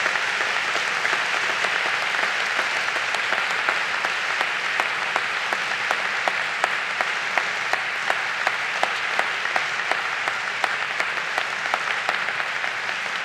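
Audience applauding steadily, with sharp single claps standing out, beginning to die down near the end.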